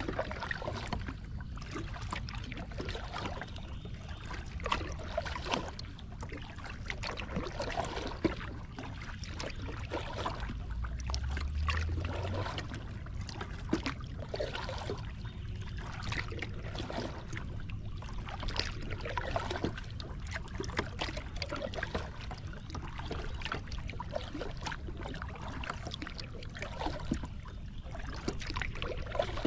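Lake water lapping and splashing in small irregular slaps against a kayak's plastic hull as it moves over a choppy surface, over a steady low rumble. A brief low thud comes about eleven seconds in.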